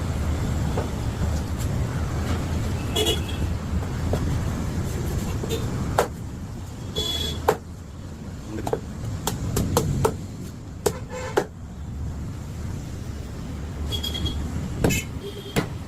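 Street traffic: a steady engine rumble with short vehicle horn toots a few times. Several sharp knocks come in the second half, after the rumble drops back.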